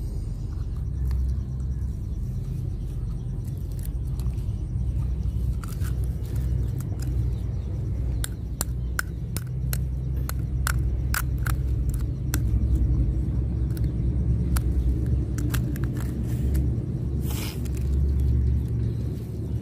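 Steady low rumble throughout. Over it, a string of light clicks and taps comes from about six to thirteen seconds in as a stick pokes through burnt, melted rubber bands and cracked egg shell, and a short scraping hiss follows near the end.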